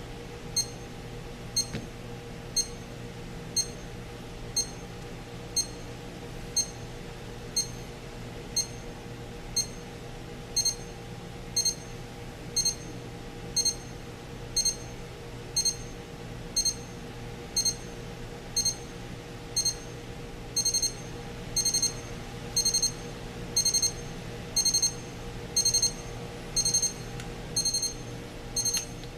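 Westclox 70228 travel alarm clock's electronic alarm beeping at about one beep a second. The beeps are high-pitched; they grow longer from about ten seconds in and louder from about twenty seconds in. A steady low hum runs underneath.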